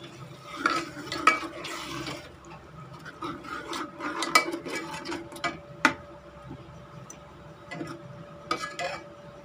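Steel spoon stirring and scraping a wet onion-tomato masala in a pressure cooker, with clinks of the spoon against the pot's metal side. It comes in bursts: in the first two seconds, again for a few seconds mid-way with one sharp clink, and once more near the end.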